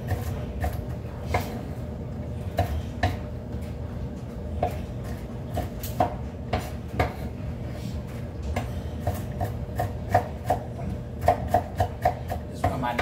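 Kitchen knife chopping food on a wooden cutting board in irregular strokes, coming quicker in a run of chops near the end.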